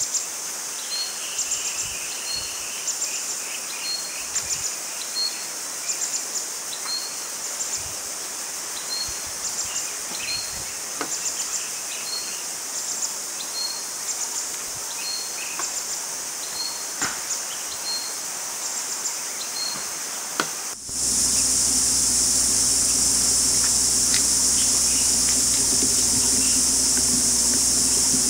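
Forest insects: a steady high buzz with a short chirp repeating about once a second, and a few faint clicks. About 21 seconds in it cuts abruptly to a louder, steady insect drone with a low hum underneath.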